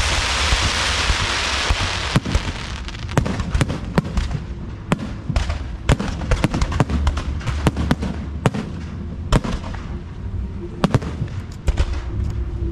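Fireworks going off: a loud crackling hiss for the first two seconds, then a rapid, irregular run of sharp bangs and pops.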